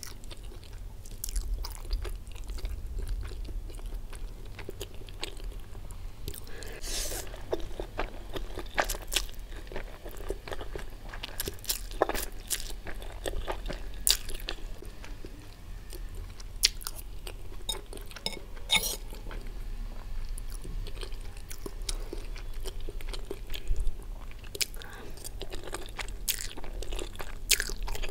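Close-miked chewing of fried Maggi instant noodles, wet mouth sounds with sharp clicks scattered throughout.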